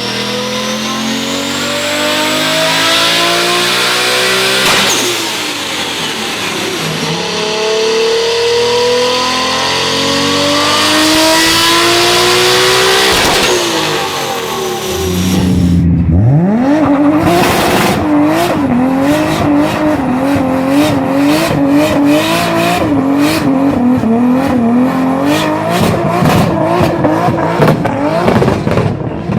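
Turbocharged car engines accelerating hard, the pitch climbing again and again as they run up through the gears. From about halfway there is a high-revving engine with a wavering squeal and a rapid series of sharp pops.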